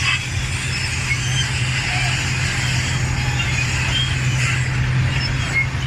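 Large crawler bulldozer's diesel engine running steadily at work, with short high-pitched squeaks scattered over it.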